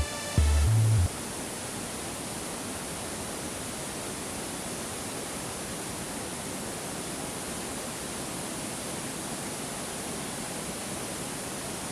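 Waterfall rushing, a steady even noise of falling water; a short bit of electronic background music cuts off about a second in.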